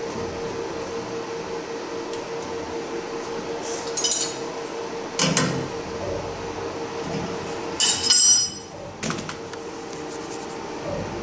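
Sharp metallic clinks and taps of a hand tool on the steel high-pressure fuel line and fittings as a diesel injector is connected on a common-rail test bench. The loudest cluster comes about eight seconds in, over a steady hum from the bench.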